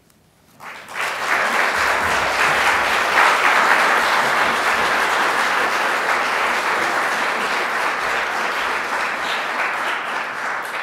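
An audience applauding steadily, starting about a second in.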